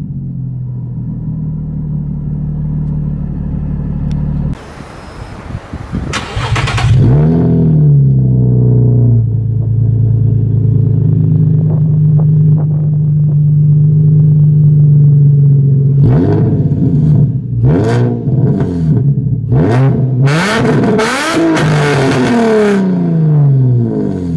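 Nissan 350Z's 3.5-litre V6 running through a cheap no-name eBay exhaust with aftermarket headers: idling, revved once about six seconds in, idling steadily again, then blipped several times in quick succession before settling back to idle.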